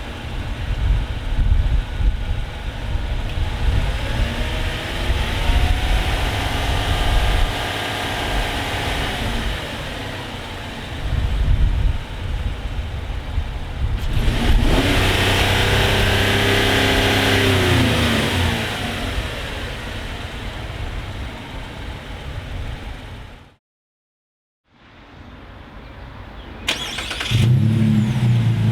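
Chevy Colorado ZR2's 3.6L V6 running through a Flowmaster FlowFX straight-through cat-back exhaust, with a deep exhaust note. It accelerates twice, the pitch rising and then falling, cuts out briefly near the end, and comes back running steadily.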